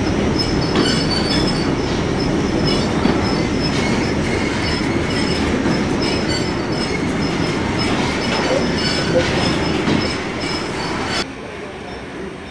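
Steam locomotive with a string of open freight wagons rolling slowly over points, the wheels squealing high and metallic over a steady rumble. The sound drops suddenly near the end.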